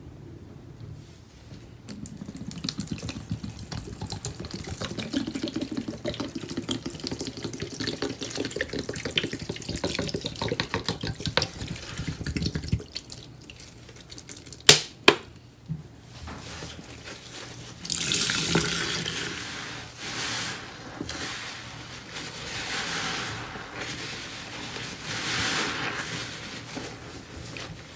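Liquid pouring and splashing onto soaked sponges in a stainless steel sink for about ten seconds, then two sharp clicks. After that come repeated wet squelches as foamy sponges full of pine cleaner are squeezed and wrung by gloved hands.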